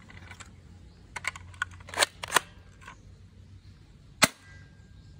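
Clicks and clacks of a plastic toy pump-action shotgun being handled and worked. A cluster of clicks comes about one to three seconds in, then a single sharp snap about four seconds in.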